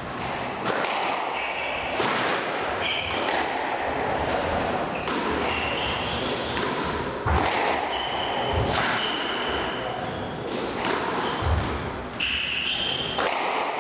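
Squash rally: the ball hitting the walls and rackets in quick, irregular strikes, with shoes squeaking on the wooden court floor.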